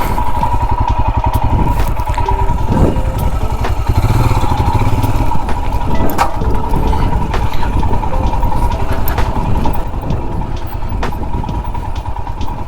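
Single-cylinder engine of a Royal Enfield Himalayan motorcycle running steadily while riding a rough off-road trail, with a few sharp knocks scattered through.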